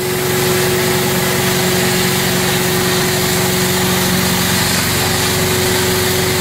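Carpet extractor's vacuum motors running steadily while a stainless extraction wand pulls hot water out of a wool rug: a loud, even rushing noise with a constant hum.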